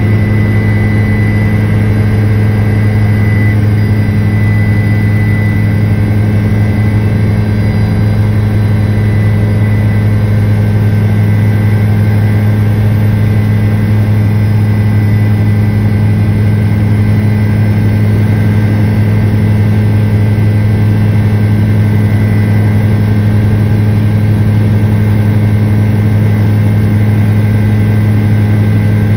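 Helicopter turbine and rotor noise in flight: a loud, steady drone with a strong low hum that does not change.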